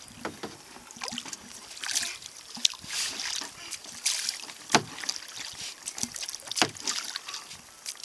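Double-bladed kayak paddle dipping into calm water in uneven strokes about once a second, with splashes and drips, and a couple of sharper knocks in the second half.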